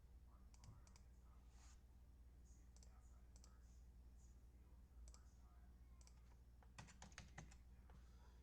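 Faint clicking of computer keys being typed, scattered at first, then a quick run of several clicks about seven seconds in, over a low steady hum.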